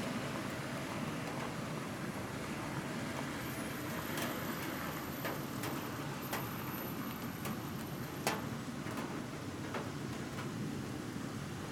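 Steady noise of rain and distant city traffic, with about half a dozen sharp ticks between about four and ten seconds in.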